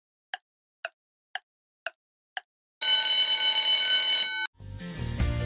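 Countdown timer sound effect: five sharp ticks at about two a second, then an alarm rings for about a second and a half as the clock hits zero. Music starts near the end.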